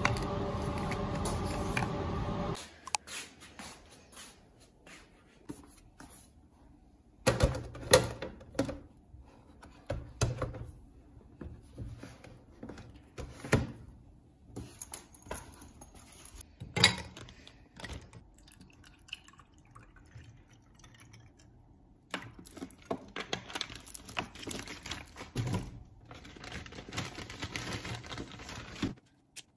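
Scattered clicks and knocks of small objects being handled on a table, with a louder steady sound that cuts off about two and a half seconds in.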